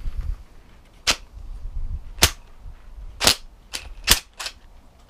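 About six sharp knocks, irregular and roughly a second apart with the last few closer together, from the carburettor just removed from a Mountfield mower being knocked about on the workbench.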